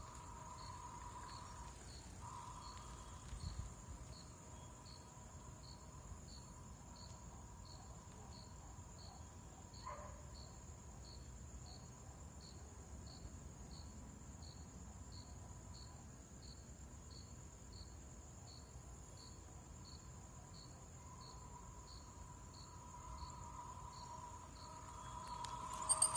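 Crickets chirping steadily, a little over one chirp a second, over a high insect trill. A faint steady electronic tone, the BYD's AVAS pedestrian warning sound, drops out briefly about two seconds in and grows louder near the end.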